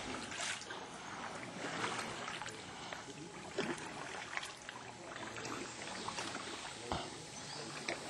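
Water lapping and dripping gently around sea canoes, with scattered small clicks and knocks of paddles and hulls and faint voices of the group.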